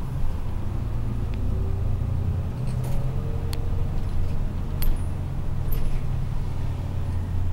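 A 1995 Hino Rainbow city bus under way, heard from inside the cabin: the diesel engine's steady low drone, with a few sharp rattles and clicks from the bus interior, the loudest about five seconds in.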